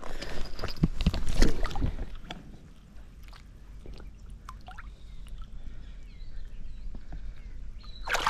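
Water splashing and sloshing as a Murray cod is lowered by a gloved hand into shallow, weedy creek water for release. The loudest splashing is in the first two seconds, followed by quieter sloshing and small drips while the fish is held in the water.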